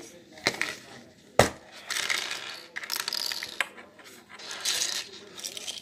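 Small hard objects clicking and clinking on a wooden tabletop as slime supplies are handled, with a sharp click about half a second in, a louder one a little later, then stretches of rustling.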